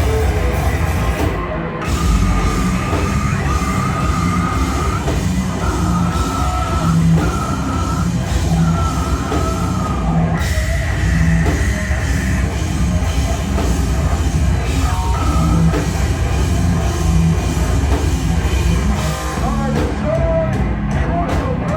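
A heavy band playing live and loud: guitars, bass and drums pounding under yelled vocals.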